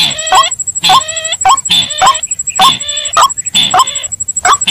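Bird-lure recording of white-breasted waterhen and crake calls: short, nasal, hooked calls repeated rapidly, two to three a second, over a thin steady high tone.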